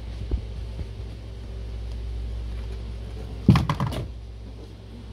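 Handling noise from a handheld phone: a short cluster of knocks and rustling about three and a half seconds in, over a steady low hum, with a single faint knock near the start.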